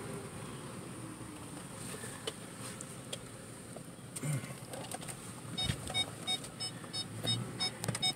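Car cabin with a low engine and fan hum. From about two-thirds of the way in, the car's electronic warning chime beeps about three times a second, with a few knocks just before it.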